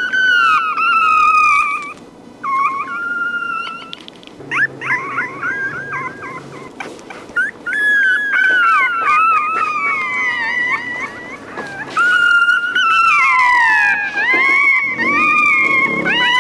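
Newborn Rottweiler puppy crying: a run of high whining cries that slide down in pitch, short and choppy in the first half, then drawn out into long falling wails, the longest near the end.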